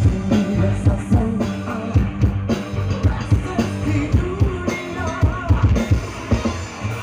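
Live band music: a steady drum beat with keyboard and guitar, and a male singer on a microphone.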